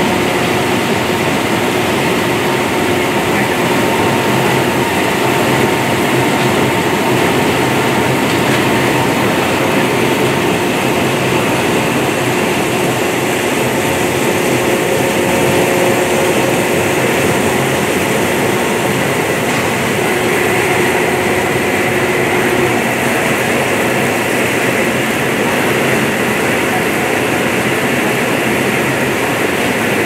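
Maize silage baler-wrapper machine running, a loud, steady mechanical noise with a few faint steady hums that does not let up.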